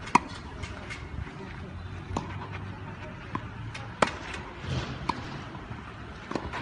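Tennis balls being hit with rackets in a rally, a series of sharp pocks a second or two apart, with the loudest just as it starts and about four seconds in.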